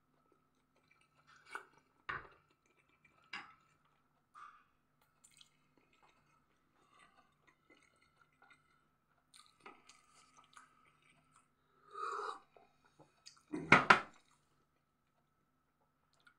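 A person chewing a mouthful of pizza, with scattered short crunchy and wet mouth sounds. A louder sudden noise comes near the end. A faint steady hum sits underneath.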